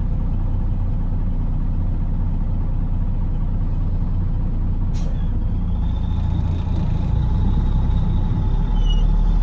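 Peterbilt semi truck's diesel engine running steadily with road noise, heard inside the cab while driving. A single light click comes about halfway through, and the low rumble grows a little stronger near the end.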